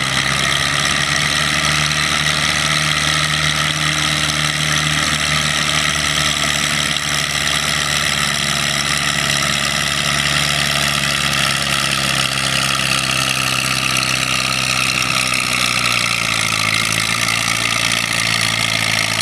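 Minneapolis-Moline 5 Star tractor's propane-fuelled four-cylinder engine running hard under load while pulling a weight-transfer sled, a steady drone whose pitch sags slightly in the second half.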